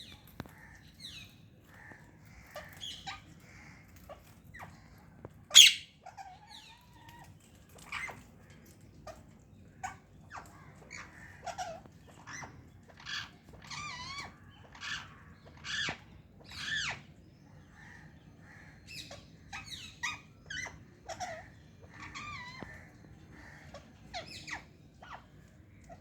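Parakeets calling: a string of short squawks and chattering calls, one every second or so, the loudest a sharp screech about five seconds in.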